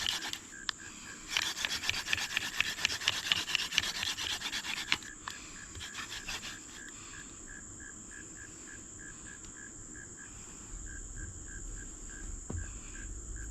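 Hand-drill fire-making: a dog fennel spindle spun between the palms grinds against a hickory fireboard in rapid rubbing strokes, stopping about five seconds in with no ember made. Insects then chirp at an even pace over a steady high insect hum.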